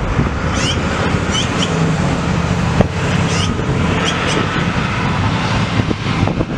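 Black-billed magpie giving short, harsh calls, about six spaced through the first half, over a steady rumble of traffic and wind.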